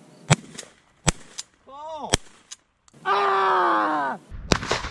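Three shotgun shots about a second apart, the first the loudest, followed by a man's long, drawn-out cry falling in pitch.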